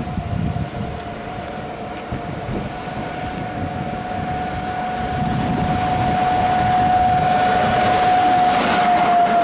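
Siemens EU44 Husarz (Taurus) electric locomotive approaching with an express passenger train, giving a steady high whine that grows louder and dips slightly in pitch near the end as it goes by. Under it, the rumble and hiss of wheels on rail build up.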